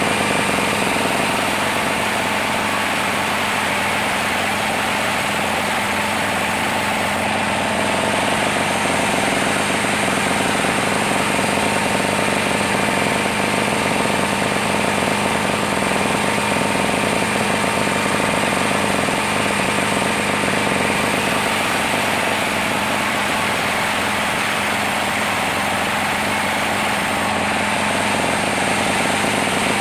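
Sawmill machinery running steadily, a loud, even mechanical noise that holds the same pitch and level throughout.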